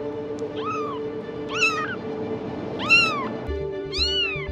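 High-pitched cat meows: four calls about a second apart, each rising then falling in pitch, over background music with steady held notes.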